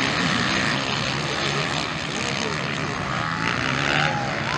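Several motocross bikes running on the track, their engines buzzing and revving as the riders race, with the pitch rising and falling late on.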